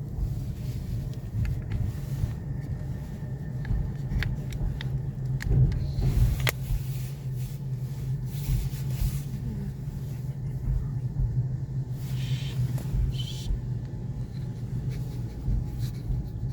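Steady low engine rumble with a deep hum, with scattered small clicks and a couple of brief hisses near the end.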